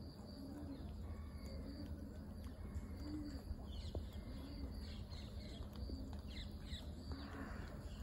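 Wild birds calling over a steady low outdoor rumble: a low call repeats about once a second, and a few quick, high, descending chirps come in small groups around the middle and again later.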